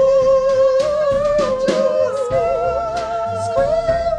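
Music: a singer holding long notes that step and slide in pitch, over instrumental backing.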